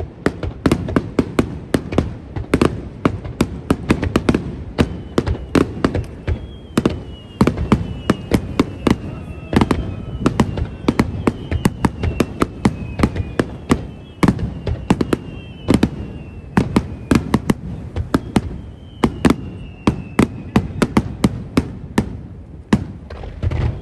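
Fireworks display going off in a rapid, continuous barrage of bangs, several a second, with thin high whistles falling in pitch over them.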